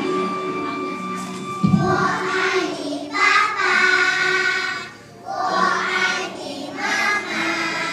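A group of young children singing an action song together over backing music, in phrases with short breaks between them. A thump about two seconds in.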